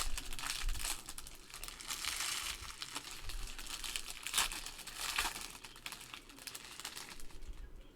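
Trading-card packs being handled and opened: wrappers crinkling with short louder rustles and tears, in a small room.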